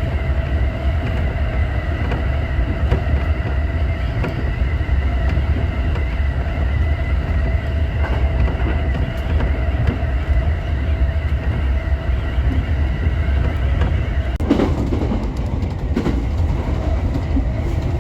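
JR Musashino Line commuter train heard from inside the car while running between stations: a steady low rumble of wheels on rail with steady tones above it. A brief rush of noise comes about fourteen and a half seconds in.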